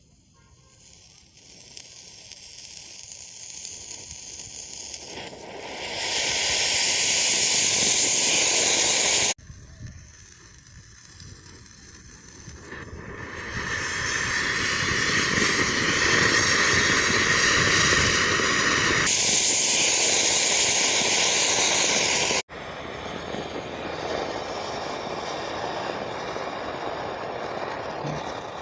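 Anar fountain firework hissing steadily as it sprays sparks, swelling from faint to loud over the first several seconds. The sound breaks off abruptly a couple of times and picks up again.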